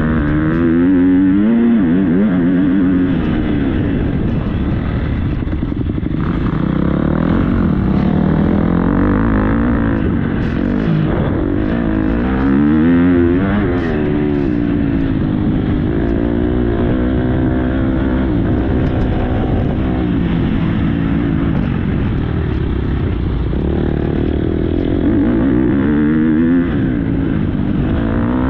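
Motocross bike engine heard from onboard, loud throughout, its revs climbing and dropping over and over as the rider accelerates, shifts and backs off.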